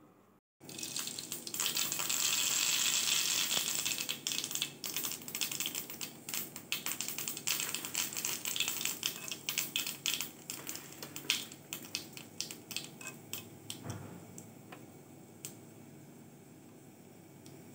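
Mustard seeds spluttering in hot oil for a tadka: a dense crackling sizzle that starts suddenly, then separate sharp pops that thin out and die away as the seeds finish popping.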